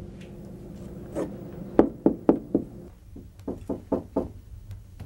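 Knuckles knocking on a door: four loud quick raps, a short pause, then five softer raps.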